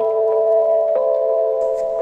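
Outro background music: soft, sustained chime-like chords that start suddenly and change note about once a second.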